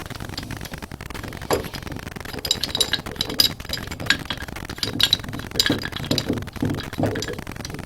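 Irregular light metallic clinks and taps of hand tools and old faucet valve parts being handled and worked, some strokes ringing briefly.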